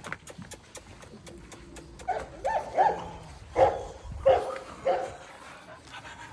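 Cane Corso puppies giving a run of about six short, high yips and barks in the middle.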